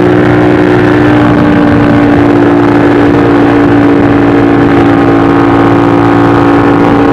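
Ducati 1199 Panigale S's L-twin engine running under load at highway speed. It holds a nearly steady pitch throughout.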